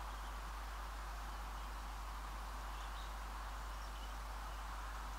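Faint, steady rural outdoor background noise with a few faint bird chirps.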